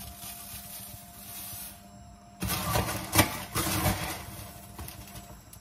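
Puffed rice cereal poured from a metal measuring cup into a pan of melted marshmallows, then the cup scooped into the cereal box, the plastic liner and dry cereal rustling and crackling loudly from about two and a half seconds in.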